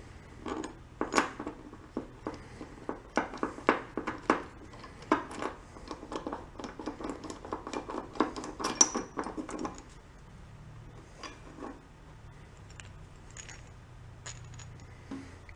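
Steel engine parts clinking and clattering by hand as the connecting-rod caps and bolts are worked off a Kohler twin's crankshaft: a quick run of sharp metal clinks for about ten seconds, then only a few scattered ticks.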